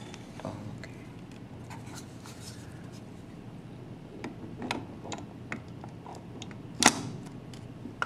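Scattered light clicks and knocks of a plastic-and-metal analog input module being pushed into a slot of a cRIO controller chassis, with one sharp click about seven seconds in as it seats.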